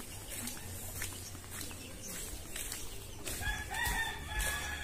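A rooster crowing, one drawn-out call that starts about three and a half seconds in, over faint footsteps on a concrete path.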